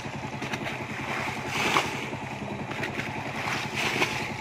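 A small engine running steadily with an even low chug, and a couple of brief sharper sounds, about two seconds in and near the end.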